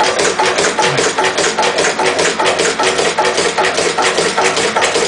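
Lister CS stationary diesel engine running near its working speed on waste vegetable oil, on its low-compression setting, with a steady, even, rapid beat.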